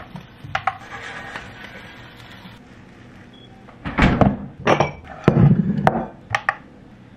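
Dishes being handled on a kitchen counter: a few light clicks, then a cluster of thunks and knocks about four to six seconds in as a ceramic bowl and a plastic sour cream tub are moved and set down.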